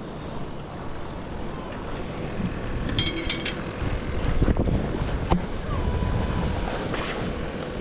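Wind rumbling on the microphone, with a cluster of sharp clicks about three seconds in and a couple of knocks a little later.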